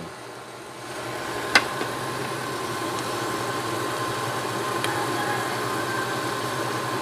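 Chopped onion and garlic sautéing in oil in a stainless steel pot: a steady sizzle with a faint hum, and a single tap of the spatula against the pot about a second and a half in.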